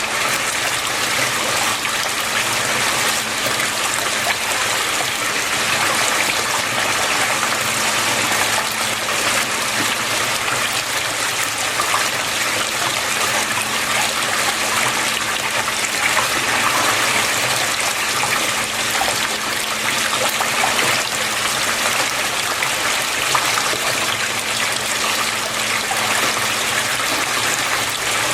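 Water flowing and splashing steadily, a continuous trickling rush with no breaks, over a faint steady low hum.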